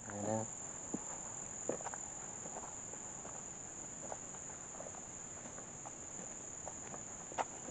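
Insects droning steadily at a high pitch in summer woodland, with scattered footsteps crunching on dry leaf litter and twigs, one sharper snap near the end.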